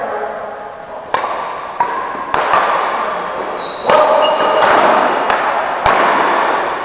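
Badminton rackets striking a shuttlecock during a doubles rally: several sharp hits, echoing in a large hall, with shouting voices between them.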